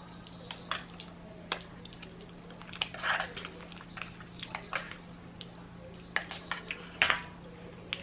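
Close-up eating sounds: chewing and biting with irregular crisp crunches and wet mouth clicks, loudest around three and seven seconds in, over a steady low electrical hum.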